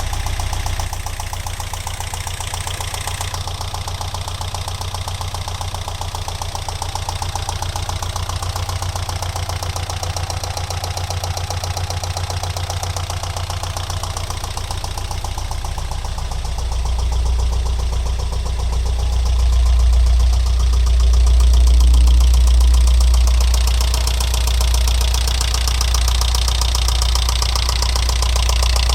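Alfa Romeo 166 2.0 Twin Spark four-cylinder petrol engine running with a steady rapid knocking rattle. Its low rumble grows louder a little past halfway. The knock began after a head-gasket replacement; with the tappet buckets ruled out and the cam variator checked, a stethoscope places it on the right side of the engine, around cylinders 3 and 4.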